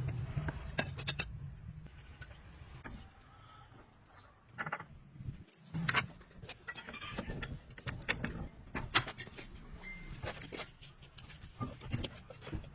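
Scattered metallic clinks and knocks of hand tools and parts being handled during truck axle bearing work, over a low hum.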